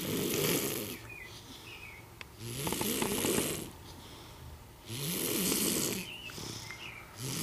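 A sleeping baby snoring in a slow, regular rhythm: four snores about two and a half seconds apart, each rising in pitch as it starts.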